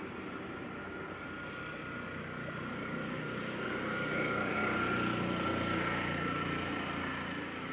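A steady engine-like drone with a thin high whine over it, swelling a little in the middle.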